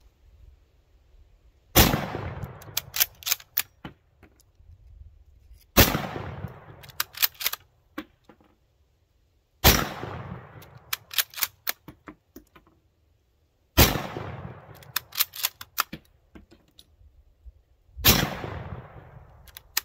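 Five shots from a Mosin-Nagant bolt-action rifle in 7.62x54R, about four seconds apart, each with a fading echo. After every shot comes a quick series of sharp metallic clicks as the bolt is worked to eject the case and chamber the next round.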